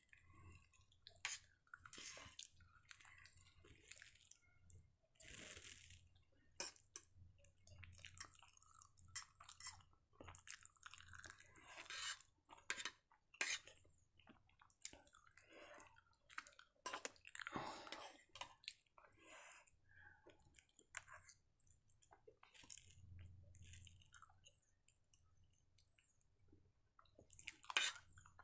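A person eating noodles with a fork: irregular chewing and mouth sounds, broken by small sharp clicks.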